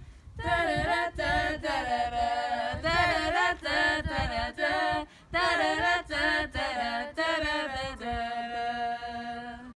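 A pop song's wordless vocal outro: several voices singing 'da da da' phrases in a cappella style, ending on a held note.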